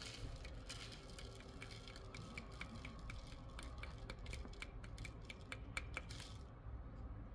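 Faint, irregular small clicks and taps, several a second and thicker in the second half, from a container of refined gold powder being tapped out onto a small scale. A low steady hum lies under them.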